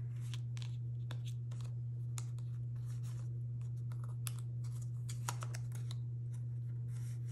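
Scattered small clicks and crinkles of round sticky tabs being peeled from their backing card and handled over a planner, over a steady low hum.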